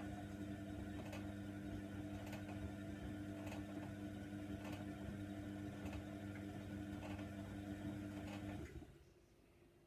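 Hoover Nextra washer dryer running with a steady hum and a faint tick about once a second, then cutting off suddenly near the end.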